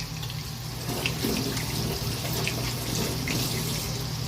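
Chicken pieces coated in beaten egg and minced garlic sizzling in hot oil in a frying pan, a steady hiss with scattered small crackles over a steady low hum.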